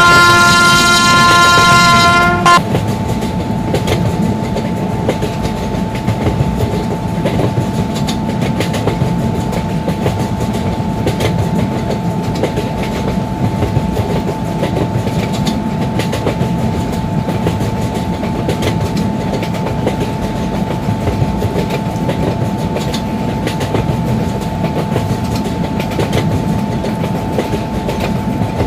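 A train horn blows loud and steady, cutting off about two and a half seconds in. Then a passing train's wheels rattle and click over the rail joints, with a thin steady whine under the running noise.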